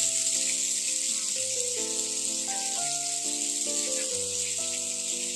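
Chicken leg pieces sizzling steadily as they fry in hot oil, under background music of held notes stepping from one pitch to the next.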